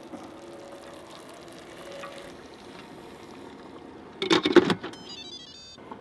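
An Instant Pot electric pressure cooker's metal lid clanks shut about four seconds in. Right after, the cooker plays a short electronic jingle of stepped high beeps.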